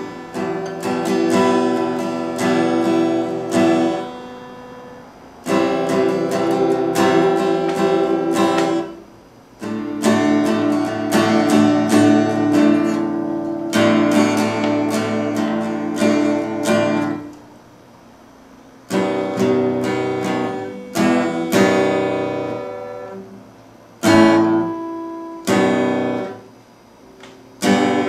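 Acoustic guitar strummed in chords, in phrases broken by short gaps where the last chord rings out and fades before the strumming starts again.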